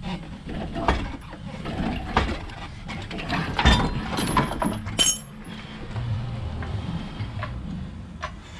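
Scattered metallic clinks and knocks, the loudest about three and a half seconds in, with a low steady hum beneath them in the second half.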